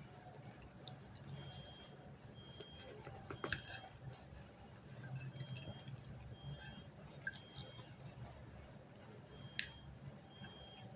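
Faint eating sounds: chewing with small mouth clicks and smacks, two of them sharper about a third of the way in and near the end, over a steady low hum.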